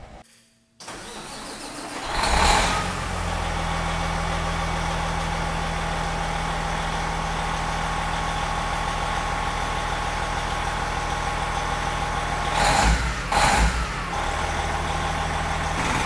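Peterbilt 389's Caterpillar 6NZ diesel engine cranks and starts about two seconds in, then idles steadily, running to air up the truck's air system. Two brief louder noises come near the end.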